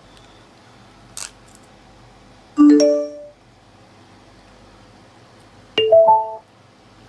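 A switch clicks about a second in, then a homemade Bluetooth speaker plays two short electronic chimes a few seconds apart, the second a rising three-note jingle. These are the power-on and Bluetooth prompt tones of its XY-P15W amplifier board as it switches on.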